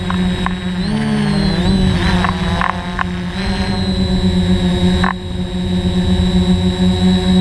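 DJI Flamewheel F550 hexacopter's brushless motors and propellers buzzing steadily in flight, heard up close from a camera mounted on the frame. The pitch dips and recovers about a second in, and a few sharp clicks come through.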